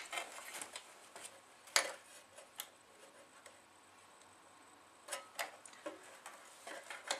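Scattered light clicks and taps of a printed circuit board being handled and seated into a CD player's sheet-metal chassis, with a quiet stretch of about two seconds in the middle.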